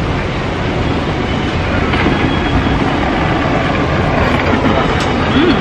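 Wind steadily buffeting the microphone in a dense low rumble, with faint voices behind it.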